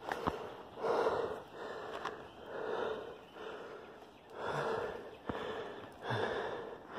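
A person breathing heavily and steadily close to the microphone, with a breath swelling about every second or so.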